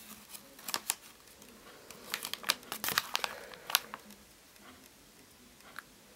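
Paper pages of a handmade picture book being turned by hand: a run of crisp rustles and crackles over the first four seconds as a page flips over, then quieter handling with one small tick near the end.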